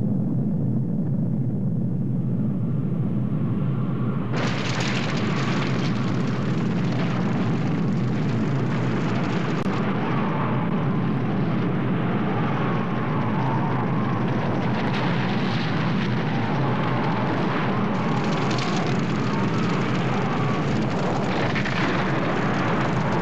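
Film sound effect of a nuclear blast and firestorm: a continuous deep rumble, muffled for about the first four seconds, then joined suddenly by a loud hiss of rushing wind and fire that carries on steadily.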